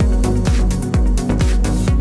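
Background electronic dance music with a steady kick drum, about two beats a second.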